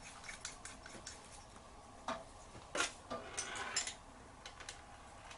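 Faint small metal clicks and light scraping as a jet holder is fitted by hand into a Honda VFR400R carburetor body, with two sharper ticks about two and three seconds in.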